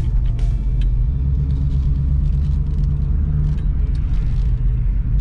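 1971 Ford Torino's 351 Cleveland V8, breathing through short-tube headers, running at low speed as heard from inside the cabin: a steady low engine drone.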